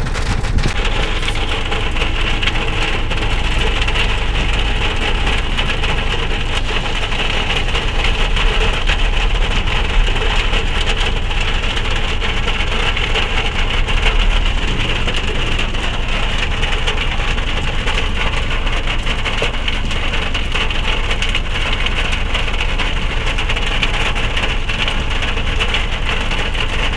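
Heavy rain drumming steadily on a car's roof and windscreen, heard from inside the cabin, with a low rumble underneath.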